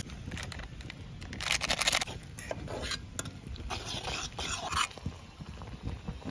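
A metal spoon stirring and scraping macaroni in a steel pot on a portable stove, in three short spells of rapid scraping clicks.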